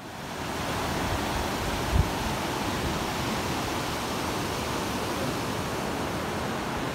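A mountain river rushing steadily over boulders and small rapids, rising in over the first half second. A brief low thump comes about two seconds in.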